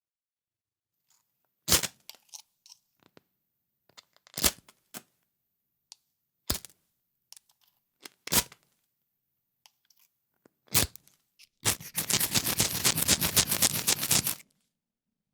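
Fire striker struck by hand: five single sharp scraping strikes about two seconds apart, then a fast run of quick strikes lasting nearly three seconds near the end.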